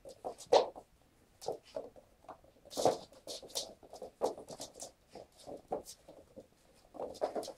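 Kittens' paws pattering and skidding on a wooden floor as they pounce and chase, an irregular run of light taps and scuffs.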